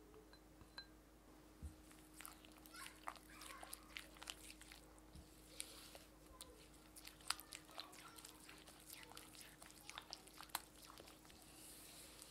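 Silicone spatula working beaten egg into creamed butter and powdered sugar in a glass bowl. It makes faint, irregular sticky clicks that start about two seconds in and go on as the batter is mixed.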